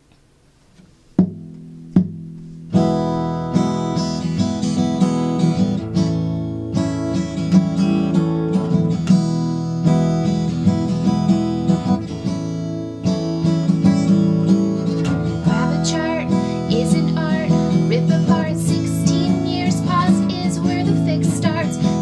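Acoustic guitar intro: two single strummed chords about a second apart, then steady rhythmic strumming from about three seconds in. A woman's singing joins over the guitar in the second half.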